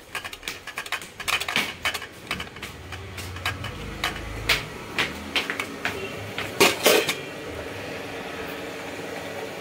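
Stainless steel bowls and kitchen utensils clinking and knocking in a run of irregular clatters, loudest about seven seconds in, then a steady low hum.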